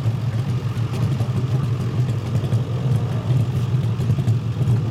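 Harley Sportster-based 650 cc single-cylinder race engine running at a steady idle.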